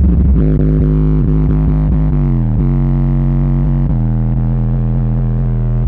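Sundown X-15 v2 15-inch subwoofer, driven by a Sundown mono 2000 amplifier, playing a loud, deep bass track. The bass notes glide downward about two seconds in, then hold a steady low drone.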